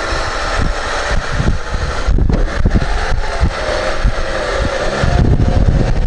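Lada 4x4 (Niva) engine pulling under load as the car crawls across a diagonal of humps with its AVT self-locking rear differential. The engine note rises and wavers in the second half.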